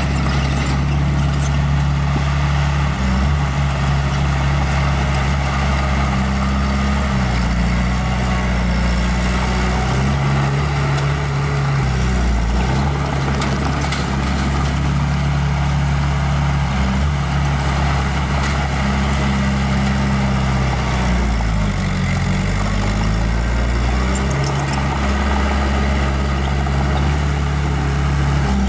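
Small bulldozer's diesel engine running steadily at work, its pitch dipping and recovering a few times as the engine speed changes, most clearly about three-quarters of the way through.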